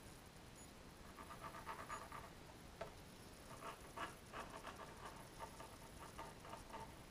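Graphite pencil scratching on paper in quick back-and-forth sketching strokes. One short run comes about a second in, and a longer run starts about halfway through.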